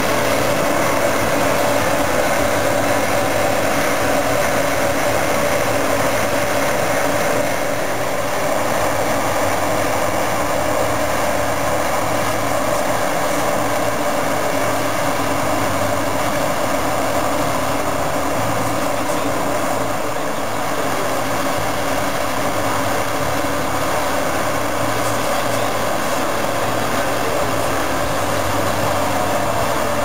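Claas Lexion combine harvester working in wheat, threshing and unloading grain while a tractor runs alongside. A steady machinery drone with a constant whine.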